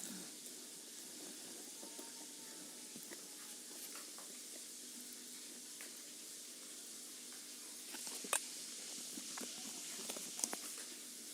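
Quiet close-up eating sounds: chewing with small mouth clicks over a steady hiss, and two sharper clicks about eight and ten seconds in.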